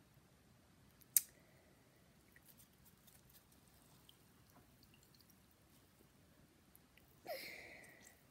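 A small plastic toy figure is handled in a ceramic bowl of nail polish remover. Faint clicks and small liquid sounds, with one sharp click about a second in and a short rushing sound near the end.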